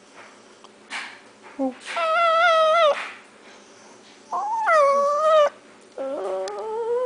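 Chihuahua howling: three drawn-out howls with a wavering, warbling pitch, the last one rising at the end.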